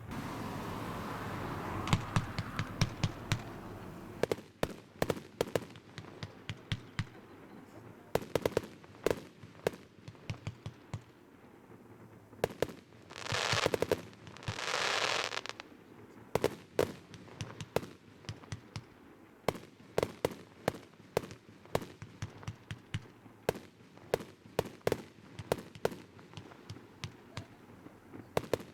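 Fireworks going off: a long, irregular run of sharp pops and cracks. A dense rumble fills the first few seconds, and two long hisses come one after the other about halfway through.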